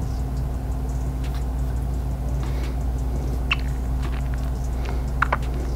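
Steady low hum, with a few short light clicks of a computer mouse as colours are picked: one about three and a half seconds in and two close together near the end.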